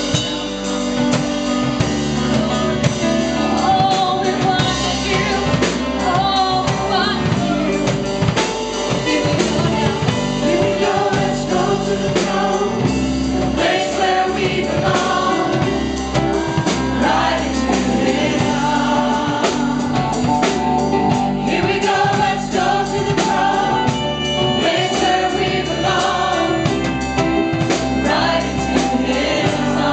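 Music: a song with a choir of singers over instruments and drums, in a gospel or Christian worship style.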